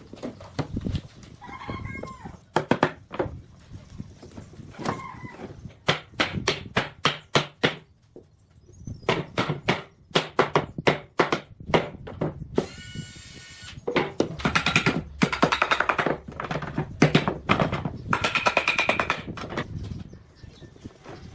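Repeated sharp knocking in runs of several quick strikes a second, with short pauses between the runs.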